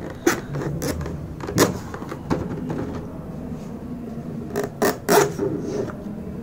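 A knife slitting the seals along the edge of a cardboard box, with irregular scrapes and sharp clicks as the blade and hands work the cardboard. The loudest strokes come about a second and a half in and again around five seconds, over a steady low hum.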